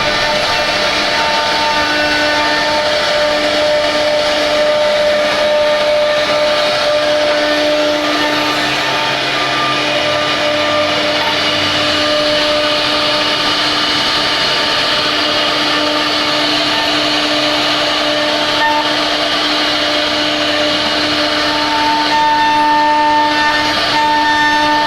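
CNC router spindle running under load while cutting wood: a steady high whine over constant cutting noise, the whine briefly dropping out and coming back as the cut changes.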